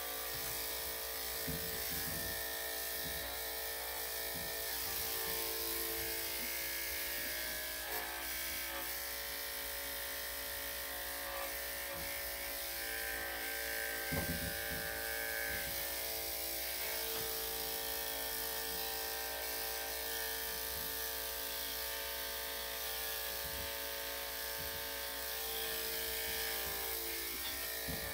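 Electric dog clippers fitted with a #7 blade running with a steady buzz while clipping a small dog's coat, with a brief knock about halfway through.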